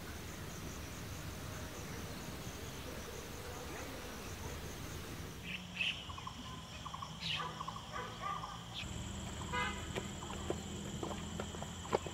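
Outdoor ambience of insects chirring, a steady pulsing high trill at first. About halfway through it changes to short chirping calls and a quick trill over a steady high drone.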